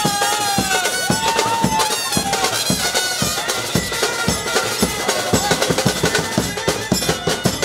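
Wedding band music: rapid, steady drumming with a held, wavering melody line over it in the first few seconds.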